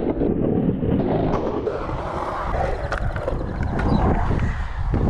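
Skateboard wheels rolling and carving on a concrete bowl: a steady rumble with a few sharp clicks, and wind on the microphone.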